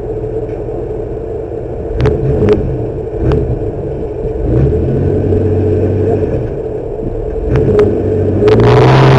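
Class 7 off-road race truck engine running hard, its note shifting up and down, with several sharp knocks and rattles. A loud rush of noise comes near the end.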